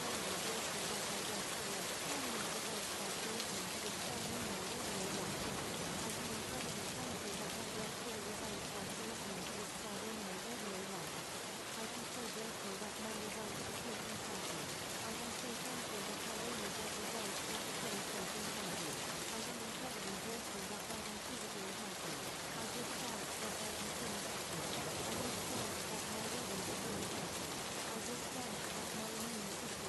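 Steady rain sound, with a faint voice speaking affirmations buried beneath it as a subliminal track.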